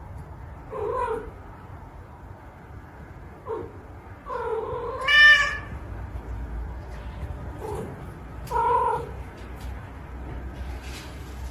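A cat meowing several times, with short calls between one long, loud meow about five seconds in that rises into a high-pitched yowl.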